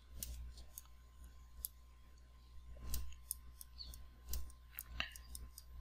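A stylus tapping and scratching on a tablet screen during handwriting: irregular, sharp little clicks over a faint steady hum.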